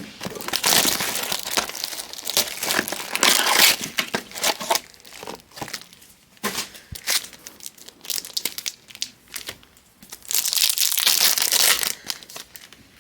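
Trading card pack wrappers being torn open and crumpled, crinkling in two dense spells, one at the start and one near the end, with scattered crackles and clicks between them.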